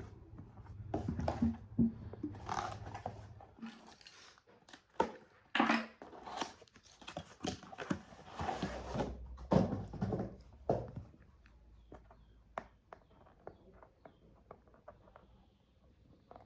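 Handling noises: irregular rustling, scraping and clicks, dense for about the first eleven seconds, then thinning to occasional light clicks.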